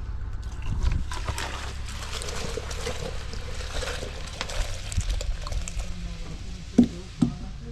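Liquid pouring from a plastic bottle into a plastic jug, a splashing gush that lasts several seconds, followed by two sharp knocks near the end.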